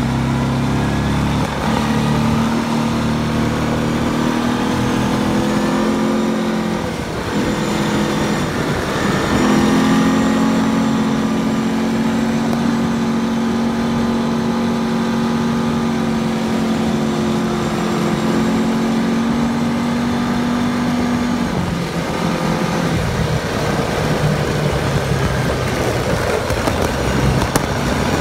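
ATV engine running under way, its note steady for long stretches. The engine note breaks off and changes around seven to nine seconds in, and shifts again about two-thirds of the way through.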